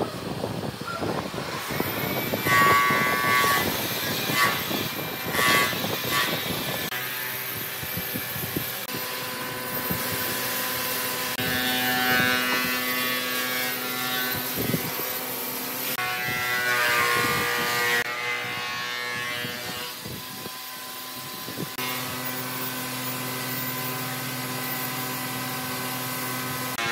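Hand-tool work on wood: scraping and rubbing with small knocks, then a power tool's motor running at a steady pitch for long stretches, its pitch shifting now and then.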